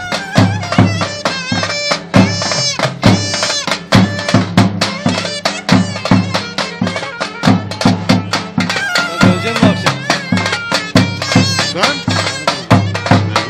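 Davul drum beaten in a fast, steady dance rhythm, with a shrill reed pipe playing a wavering folk tune over it.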